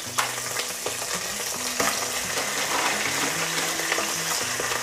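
Whole cleaned crabs sizzling as they go into lightly heated oil in a steel pot, with a few sharp knocks of shells landing. The sizzle builds a little as more crabs go in.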